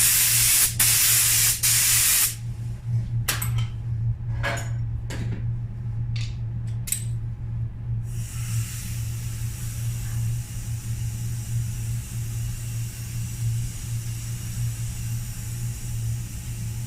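Compressed-air paint spray gun spraying, a loud steady hiss that stops a little over two seconds in. Then a few short bursts of hiss, and from about halfway a quieter steady rush of air over a constant low hum.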